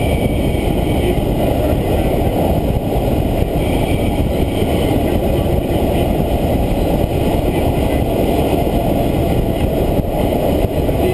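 Steady, loud rush of air streaming past a glider's canopy in flight, even and unbroken.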